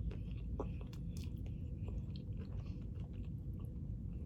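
Close-miked chewing: mouth noises with scattered small clicks as a person eats pizza or wings.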